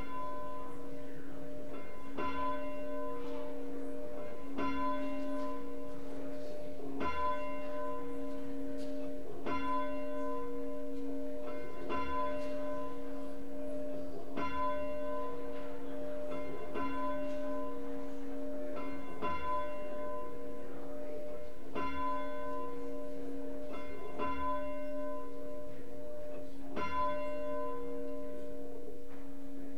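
A single bell tolling slowly, struck about every two and a half seconds, about a dozen times, its ring carrying over between strikes.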